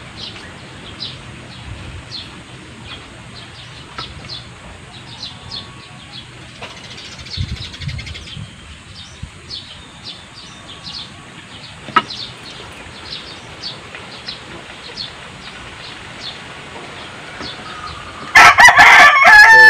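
A rooster crows loudly near the end, one long call falling in pitch. Before it, birds chirp lightly and repeatedly, with a single sharp tap about twelve seconds in.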